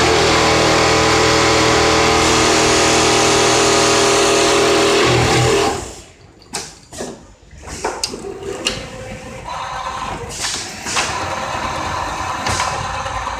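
Automatic template sewing machine running steadily at speed for about six seconds, then stopping abruptly. A quieter stretch of mechanical clicks and clacks follows, with a lower machine running underneath.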